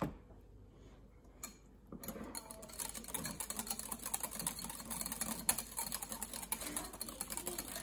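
Wire whisk beating a thick mayonnaise dressing in a bowl: a fast, even clatter of the wires ticking and scraping against the bowl, starting about two seconds in.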